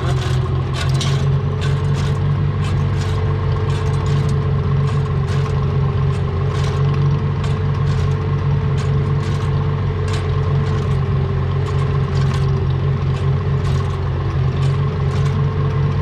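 Farmall 706 tractor engine running steadily under load, with irregular clicks and rattles throughout.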